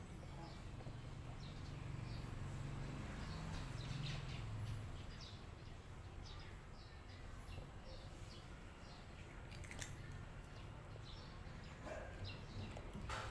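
Faint background ambience with a low rumble for the first few seconds and scattered short, high ticks or chirps, a few stronger ones near the end.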